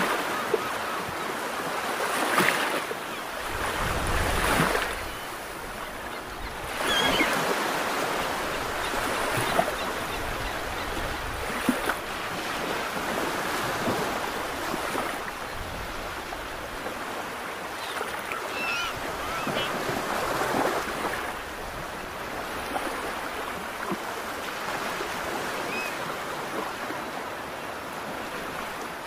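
Sea waves washing in: a steady rushing noise that swells and eases every few seconds.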